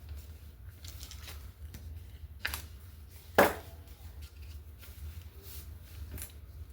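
Small clicks and taps of paper-craft pieces being handled on a tabletop, with one sharp tap about three and a half seconds in and a fainter one a second before it.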